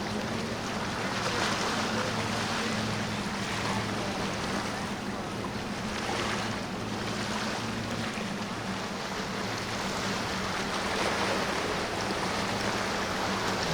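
Boat engine running steadily with a low drone, over surf and wind noise on the microphone that swell and fade every couple of seconds.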